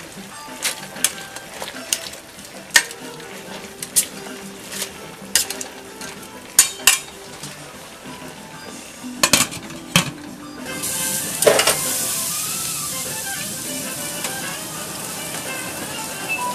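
Metal tongs clinking irregularly against a stainless steel pasta pot as fettuccine is stirred in the water. About eleven seconds in, a steady hiss of the pot boiling takes over.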